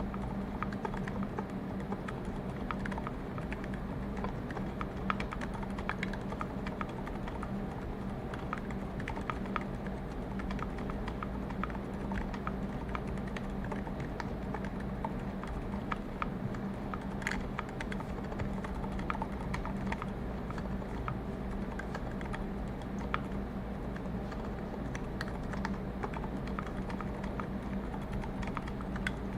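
Continuous irregular typing on a mechanical keyboard with MX Zilents silent tactile switches, lubed with Krytox 1514 and filmed, in a brass plate under GMK keycaps: many soft keystroke clicks. A steady low hum from the room and the boosted microphone sits underneath.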